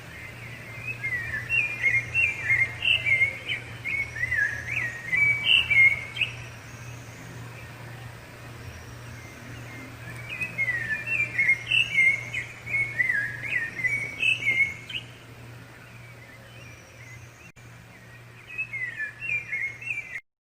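Rufous-bellied thrush (sabiá-laranjeira) singing: three bouts of quick, varied whistled phrases, starting about a second in, around ten seconds in, and near the end.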